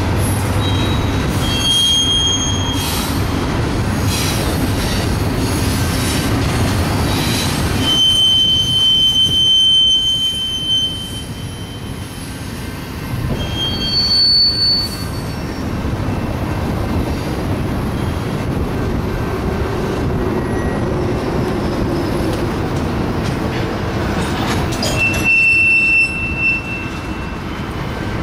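Freight train of tank cars rolling past with a continuous rumble of wheels on rail, broken by several high-pitched steel wheel squeals, the longest lasting about three seconds around a third of the way in and another near the end.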